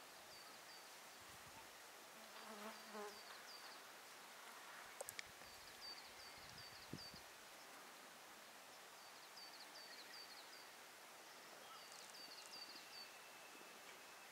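Near silence: faint outdoor ambience with small groups of short, high chirps recurring throughout. A brief low call comes about two and a half seconds in, and a few light clicks come around five seconds.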